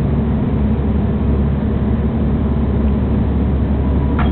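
Steady low rumble of a moving diesel passenger train heard from inside the carriage: running noise of the wheels and engine. A brief click comes near the end.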